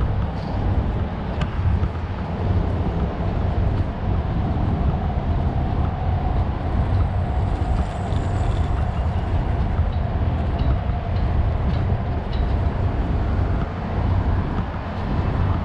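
Steady low rumble of outdoor city street and traffic noise, picked up by a GoPro action camera carried at walking pace.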